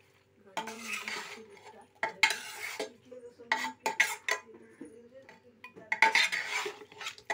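A spoon scraping and stirring around a black pressure-cooker pot while raw chicken is mixed with spices and oil, in four separate bouts of scraping about a second each.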